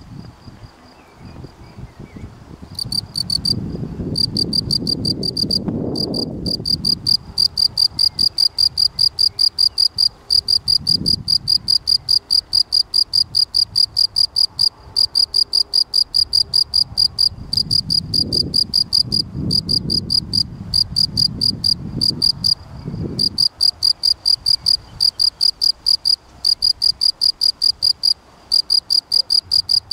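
Male European field cricket (Gryllus campestris) singing its calling song: a loud, high chirp repeated about three to four times a second, starting about three seconds in and pausing briefly now and then.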